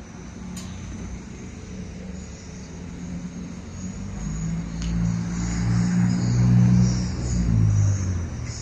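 Road traffic rumble, with a motor vehicle's engine hum growing louder about halfway through and easing off near the end.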